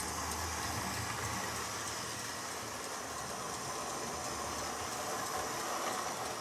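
Hornby OO gauge model steam locomotive running on the layout track: a steady whirr of its small electric motor with the rumble of wheels on rail.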